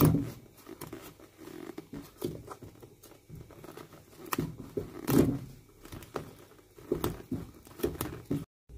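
A small knife cutting through the stitching between the sole and welt of an old golf shoe: irregular small snaps, scrapes and rustles, with a couple of louder knocks from handling the shoe, near the start and about five seconds in.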